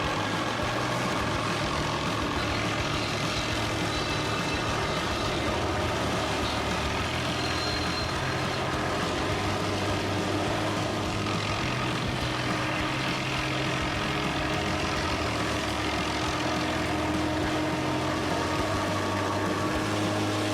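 Heavy log truck's diesel engine running steadily, its low note shifting every second or two.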